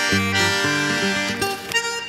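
Bandoneón and acoustic guitar playing together: the bandoneón holds reedy chords over plucked guitar notes, moving to a new chord near the end.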